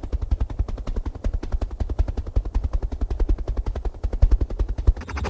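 Main rotor of a large military transport helicopter thudding rapidly and evenly as it hovers low. About five seconds in, the thudding gives way to a denser, hissing engine noise.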